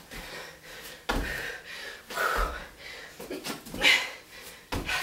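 A woman breathing hard from a high-intensity workout, with several short, forceful exhales. Two dull thumps come in the first half, from body weight landing on the carpeted floor during burpees.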